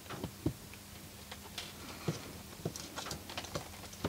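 Light, irregular clicks and taps of multimeter test probes and a small circuit board being handled and shifted into place.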